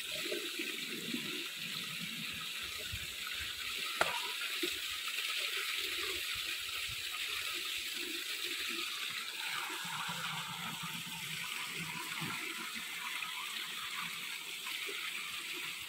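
Spring water gushing from a pipe outlet and pouring onto a person sitting beneath it, splashing onto the ground in a steady rush. A single sharp knock about four seconds in.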